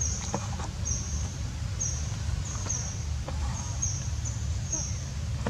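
Forest ambience: short high-pitched chirps repeating about once or twice a second over a steady low rumble, with a few faint clicks.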